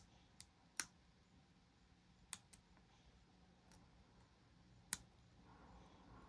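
Pick and tension tool working the pins of a dimple lock: a handful of sharp, separate metallic clicks spread over several seconds, the loudest about a second in and near five seconds in, with quiet between them.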